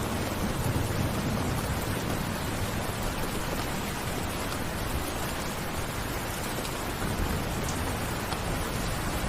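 Steady heavy rainfall, an even hiss of falling rain, with a low rumble of distant thunder dying away in the first second or so.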